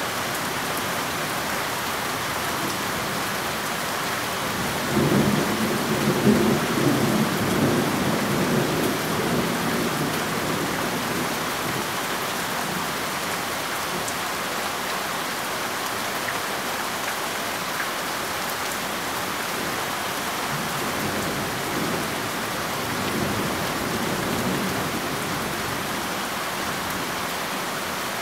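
Steady rain with thunder rumbling. A loud rumble starts about five seconds in and fades over several seconds, and a fainter one comes later.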